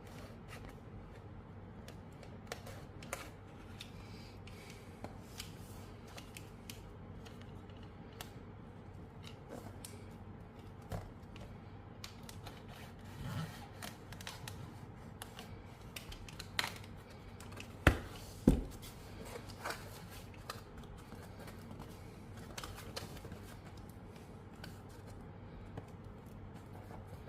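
Packaging being handled and opened by hand: scattered small clicks, taps and crinkles, with two louder knocks close together about two-thirds of the way through.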